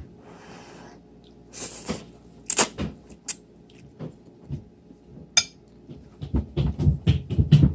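Kitchen clatter: dishes and utensils knocking and clinking a few times, then a quick run of light knocks in the last couple of seconds.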